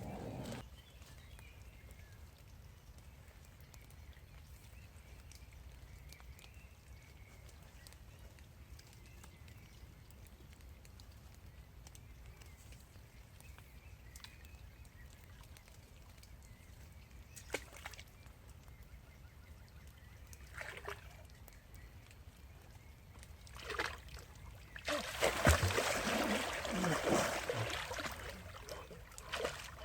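Water sloshing and splashing for a few seconds near the end as a person moves through water; before that only a faint low rumble with a few light knocks.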